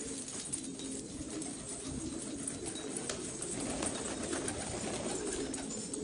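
Domestic pigeons cooing, low murmuring calls repeated throughout, with scattered light clicks over them.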